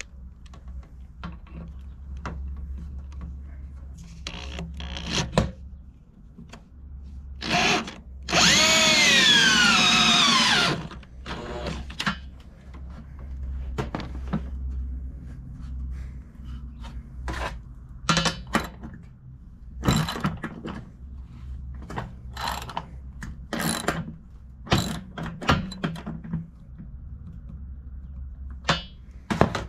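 A power drill runs for about two seconds, its motor pitch falling steadily as it slows under the load of driving a lag bolt, just after a brief blip of the trigger. Scattered short clicks and knocks of hardware being handled come before and after it.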